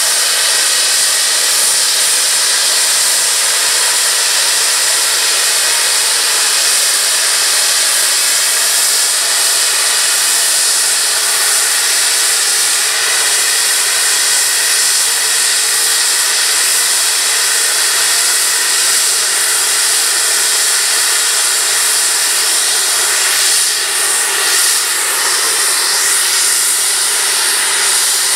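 LNER A3 Pacific steam locomotive Flying Scotsman blowing off steam from its safety valves: a loud, steady hiss that does not let up. It is the sign that the boiler has reached full working pressure.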